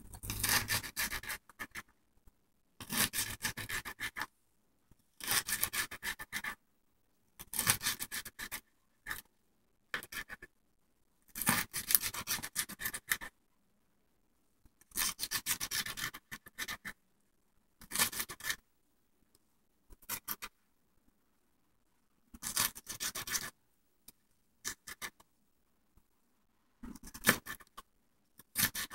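Kitchen knife dicing green bell pepper on a plastic cutting board: quick runs of chopping strokes about every two seconds, with short pauses between.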